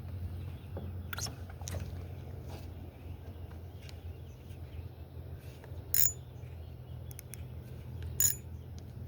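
Sharp light clicks from a fishing reel and rod being handled while a topwater popper is worked, over a steady low hum. The two loudest clicks, with a short metallic ring, come about six and eight seconds in.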